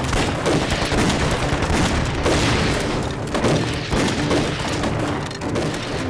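Battle gunfire: rapid, overlapping rifle shots forming a continuous volley, with occasional heavier booms.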